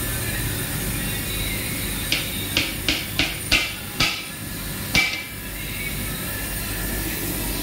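A perforated metal ladle knocking against a large aluminium cooking pot as rice is turned in it: a quick, uneven run of about seven sharp metallic clanks near the middle, over a steady low noise.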